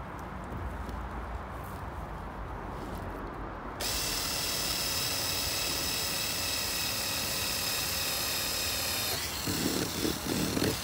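Cordless drill running steadily, boring drainage holes through the base of a black plastic compost bin; its motor whine starts about four seconds in and stops about five seconds later. A few irregular knocks follow near the end.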